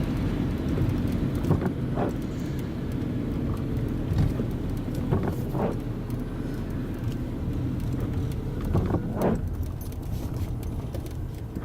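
Strong wind buffeting the microphone: a steady low rumble with a few brief knocks.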